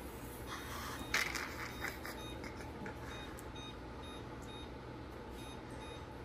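Electric oven's control panel beeping in a quick, even series of short beeps as the timer button is held down, stepping the time up in 10-minute steps. There is a brief clatter about a second in.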